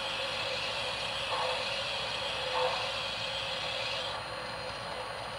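Sound system of an MTH Rail King steam locomotive model playing steam effects: a steady hiss with a soft chuff about every second and a quarter. The high part of the hiss cuts off about four seconds in.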